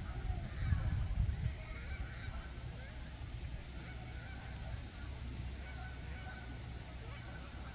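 Geese honking repeatedly, with a low rumble in the first second and a half.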